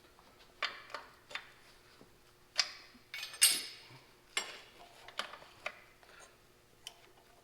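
Hand tools clinking and clanking against metal tractor parts while fasteners are being worked loose: a series of separate sharp metallic clinks, with a short clattering rattle about three seconds in that is the loudest.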